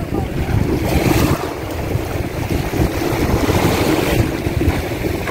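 Wind buffeting the microphone in uneven gusts, over small waves washing onto a sandy shore.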